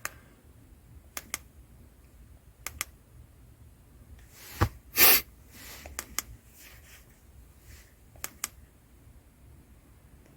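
Button clicks on a handheld OBD diagnostic scan tool as its menus are stepped through, mostly in quick pairs every second or two, with one short, louder burst of noise about halfway.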